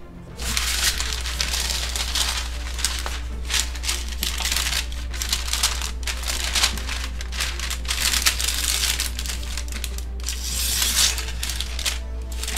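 Parchment paper crinkling and rustling as hands fold it and press it into an enamel tray. It starts about half a second in, over a steady low hum.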